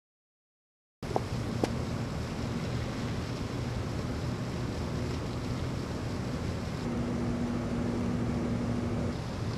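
About a second of complete silence, then steady outdoor background noise: a low rumble with a hiss over it. Two short clicks come just as it begins, and a faint steady hum is heard for a couple of seconds near the end.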